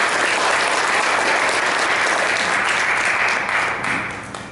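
Audience applauding, thinning into scattered claps and dying away near the end.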